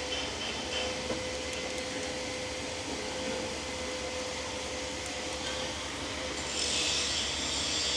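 Steady workshop hum with faint clicks, then a light rubbing, scraping sound for the last second or so as metal parts are worked at the brake.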